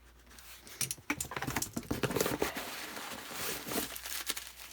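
Hands rummaging through a shipping box: rustling packaging with many light clicks and knocks of items being handled, starting about a second in.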